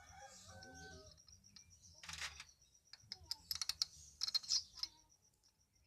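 Small metal engine parts clicking and clinking as a motorcycle cylinder head is fitted back onto its studs, in quick irregular clusters that are loudest a little past the middle.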